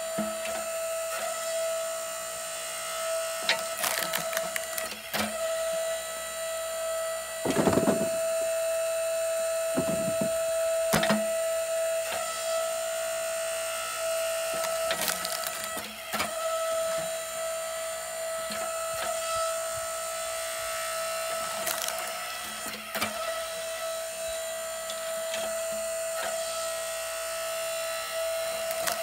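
Split-Fire 1165 electric log splitter's motor running with a steady whine while its ram drives hickory rounds through the wedge. The wood splits with a series of sharp cracks and knocks, the loudest about eight seconds in.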